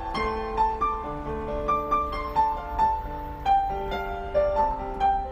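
Gentle background piano music: a melody of single struck notes over held lower notes.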